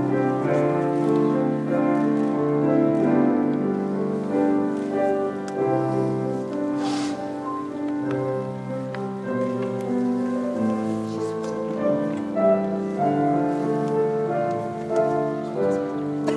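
Slow processional music on a keyboard instrument: chords and a melody of long held notes that change every second or so. A brief rustle comes about seven seconds in.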